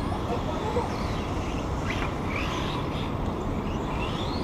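Small electric radio-controlled cars racing on a track, their motors giving short high whines that rise and fall as they speed up and brake, several times in the second half, over a steady low rumble.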